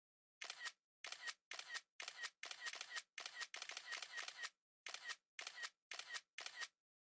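Camera shutter clicks, over and over: about twenty short, sharp clicks in quick uneven runs, some coming several a second, with dead silence between them.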